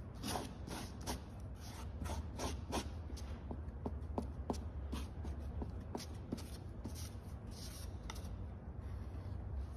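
Metal putty knife scraping and smearing two-part epoxy fairing compound across cardboard while mixing it: a quick, irregular run of short scrapes and taps, over a steady low hum.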